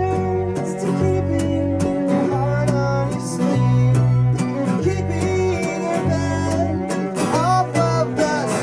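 Live acoustic string-band music in a country/bluegrass style: strummed acoustic guitar, steady on the beat, over held low cello notes that change about once a second, with bowed violin sliding between notes near the end.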